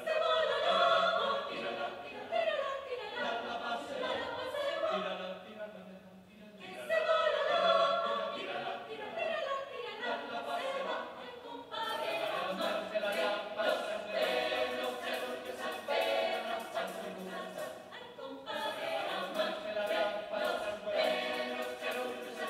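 Mixed choir of men's and women's voices singing a cappella, in phrases broken by short breaths every few seconds.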